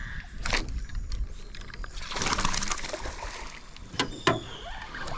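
Water splashing at the surface beside a small boat for about a second, with a sharp click before it and two sharp knocks about four seconds in.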